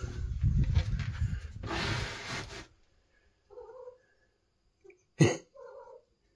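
A small pet scuffling and rustling as it runs about, then several short squeaky noises from it, with one sharp knock about five seconds in.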